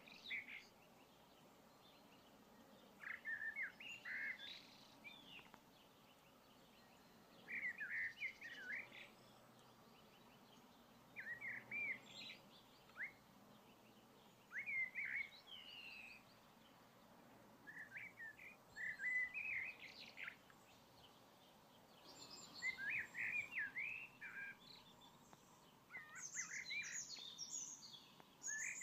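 A songbird singing short, quick warbling phrases, each about a second long, repeated every three to four seconds over a faint steady background hiss.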